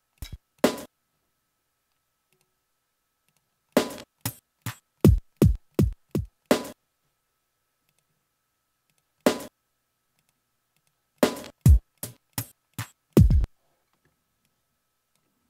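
Slices of an electronic drum loop played back one at a time as they are auditioned in ReCycle: short drum hits, several with a deep low end, heard singly and in two quick runs with silent gaps between them.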